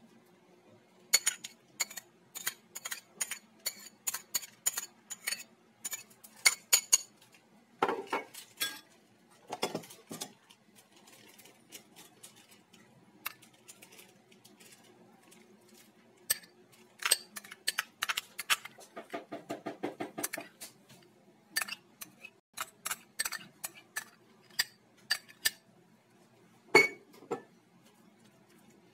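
Metal spoon clinking and scraping against a ceramic bowl and a glass bowl as minced onion and mayonnaise are spooned into flaked tuna. A quick run of ringing taps comes in the first several seconds, scattered clinks and scrapes follow, and one sharp clink sounds near the end.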